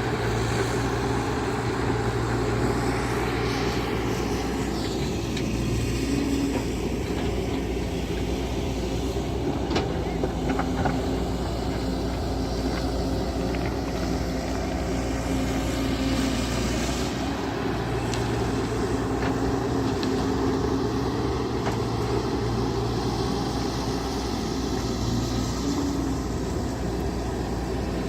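An engine running steadily, with a constant low hum throughout.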